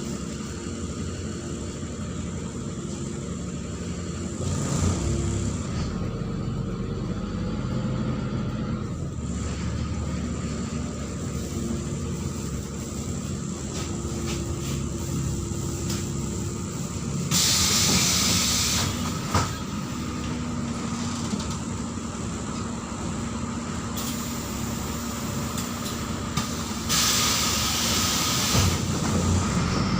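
Neman city bus heard from aboard: its diesel engine and the road noise run steadily. Two loud bursts of compressed-air hiss from the bus's pneumatic system come about two-thirds of the way in and again near the end, with a sharp click just after the first.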